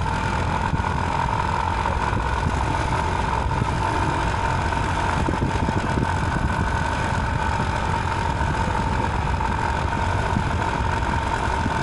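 Small motorcycle engine running steadily while riding, with a steady whine over the engine noise.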